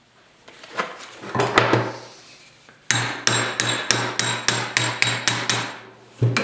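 Hammer blows on a small steel bracket being bent a little further in a bench vise: a few clanks of metal, then a quick run of about ten ringing strikes, roughly four a second, and one more near the end.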